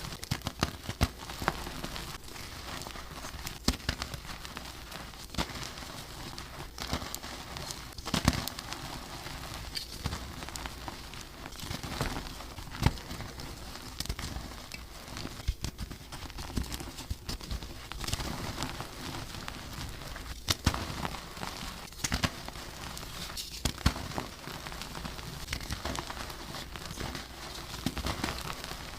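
Blocks of gym chalk being crushed and crumbled, a steady run of crunching and crackling with frequent sharp cracks.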